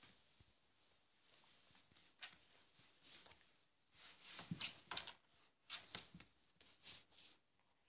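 Faint rustling and scuffling as a pale dog and a black-and-white pet play-fight, with soft scrapes and a dull thud coming thicker in the second half.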